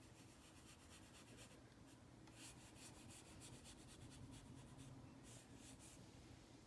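Faint soft strokes of a pastel sponge applicator rubbing PanPastel onto paper, in a few runs of quick swishes.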